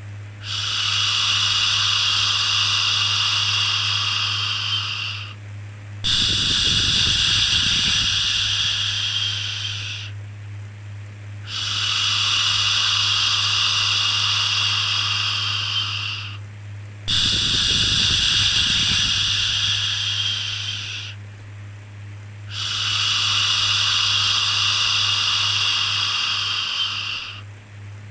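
A long soothing "shhh" shushing sound for calming a baby, repeated five times, each lasting about four to five seconds with a short pause between, over a faint steady low hum.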